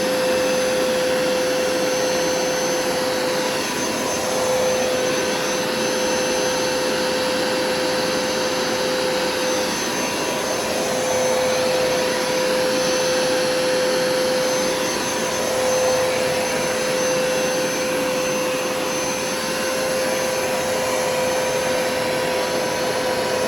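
Hoover carpet cleaner running steadily on carpet, a motor whine over a constant rush of air, with only slight swells in level.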